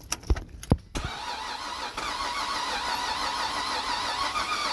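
A couple of clicks, then a 2007 Cadillac CTS 3.6 V6 cranking steadily on the starter for about four seconds without catching, stopping near the end. The no-start is what the owner takes for a failed crankshaft position sensor.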